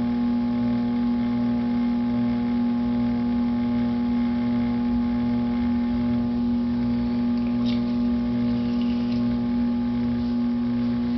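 Electric potter's wheel motor running at a steady speed, an even hum.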